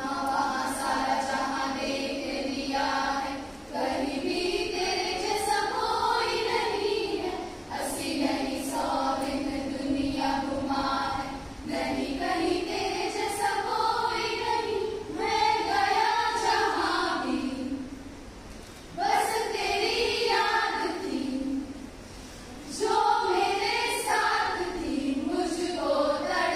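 A group of women singing a patriotic song together in phrases, with short breaks between the lines.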